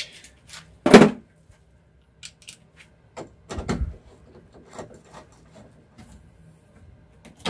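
Hand tools and metal parts being handled while unbolting a car's front grille with a 10 mm socket: one sharp clank about a second in, a short clatter a little past the middle, and scattered light clicks.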